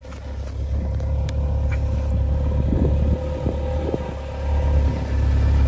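Modified Jeep Wrangler's engine running at low revs as it crawls slowly toward the camera, a steady deep rumble with a steady whine over it, growing a little louder near the end as it comes closer.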